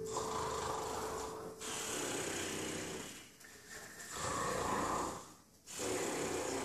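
Staged snoring: about four long, breathy snores with short pauses between, a person pretending to be fast asleep.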